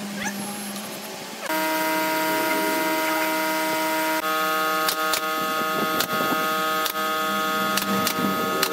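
Cordless drill motor running at a steady pitch, starting about a second and a half in, its tone shifting slightly about four seconds in, with a few sharp clicks.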